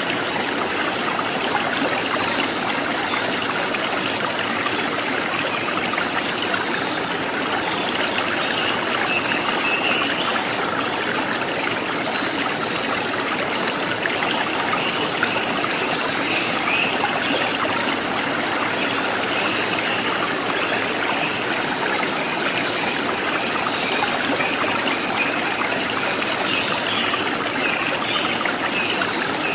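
A forest stream babbling steadily over rocks, with faint bird calls now and then.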